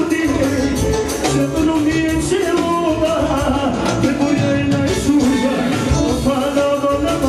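Live band playing fast dance music, a saxophone carrying a winding melody over a steady drum beat.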